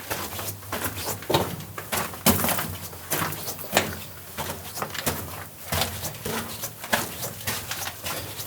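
Footsteps crunching over loose rock and gravel on a mine tunnel floor, a few irregular steps a second.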